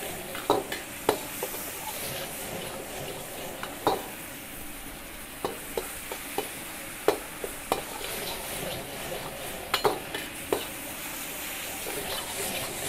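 Metal spatula stirring chicken and vegetables in a steel wok, clinking and scraping against the pan at irregular moments, over a steady sizzle of the frying sauce.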